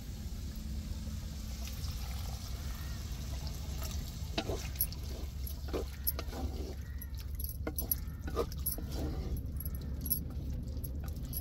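Wooden spatula stirring and scraping goat liver pieces in a pan with water just added for simmering. It sounds as repeated short strokes from about four seconds in, over a steady low rumble.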